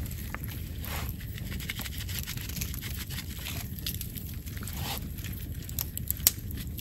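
Hands rubbing and handling a raw whole chicken on aluminium foil: soft scraping and light crinkles with a few sharp clicks, the loudest near the end, over a steady low rumble.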